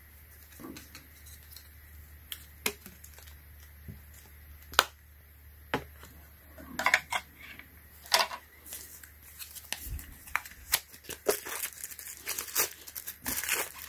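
Sparse sharp clicks and taps of a hard plastic phone case and phone being handled and set down, the loudest a little under halfway through. In the last few seconds this gives way to dense crinkling and scraping as a small cardboard case box is opened and its plastic packaging handled.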